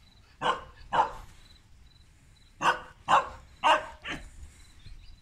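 Tibetan mastiffs barking in play: two short barks about half a second apart, then three more in quick succession a couple of seconds later, followed by a softer one.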